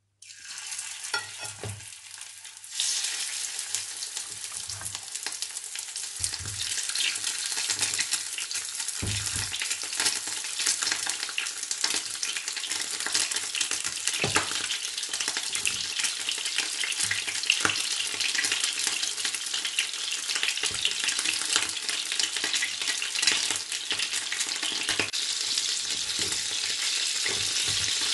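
Batter-coated king crab leg pieces frying in hot oil in a pan: a steady sizzle with crackling pops. It starts as the first piece goes in and gets louder from about three seconds in as more pieces are added.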